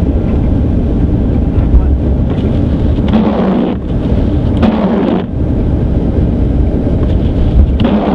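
Steady low rumble of a car driving on the highway, heard from inside the cabin, with a brief higher-pitched burst three times, about three, four and a half and near eight seconds in.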